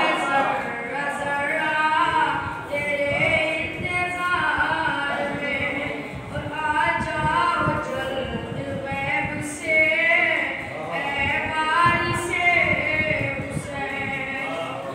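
A boy chanting a devotional recitation into a microphone, unaccompanied, in long melodic lines.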